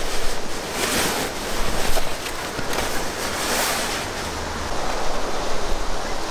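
Nylon sleeping bag being stuffed by hand into its stuff sack: rustling swishes of fabric with each push, about one a second at first, softer near the end.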